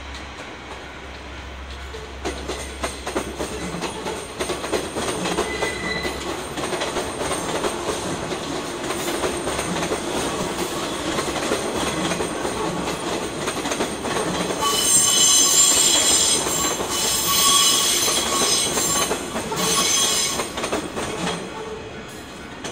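JR 115 series electric train running past close by, its wheels thudding over rail joints about once a second. From about 15 s to 21 s the wheels give a loud, high-pitched squeal that comes and goes.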